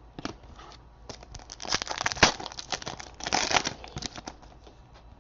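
Trading cards and their packaging being handled: bursts of rustling and crinkling as cards are slid and flipped through a pack.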